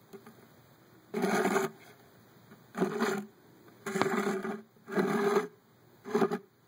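A small motor whirring in five short bursts, each under a second long, with quiet gaps between them.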